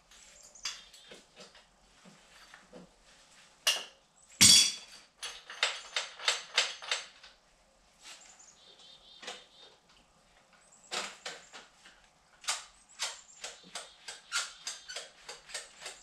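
Hand tools working at a dirt bike's rear wheel axle: irregular runs of sharp clicks, about three a second, with one louder knock about four and a half seconds in.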